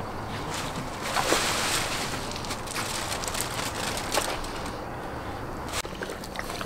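Raw tripe being lifted and pressed in a plastic basin of water, with wet squelching and sloshing, loudest a little over a second in.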